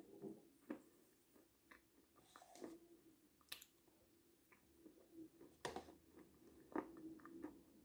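Soft, close mouth sounds of eating fruit yogurt off a metal spoon: wet smacks with a few sharp clicks, the loudest about three and a half and about six seconds in.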